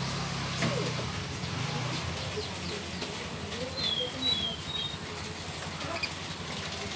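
A canary gives a few short, high, falling chirps about four seconds in, over a steady low hum and faint background voices.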